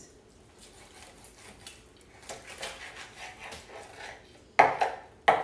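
A kitchen knife slicing through a raw whole chicken's leg joint on a plastic cutting board, with faint scraping and rustling. Near the end come two sharp knocks, under a second apart, as the knife strikes the board.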